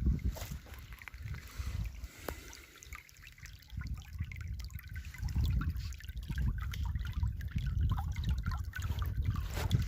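River water flowing and trickling over stones, with many small splashes and gurgles. Underneath runs a low, uneven rumble that dies down for a couple of seconds early on and then swells again.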